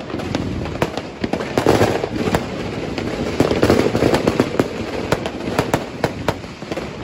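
Fireworks and firecrackers going off in a dense barrage: many sharp bangs and cracks, several a second, over a steady rumble.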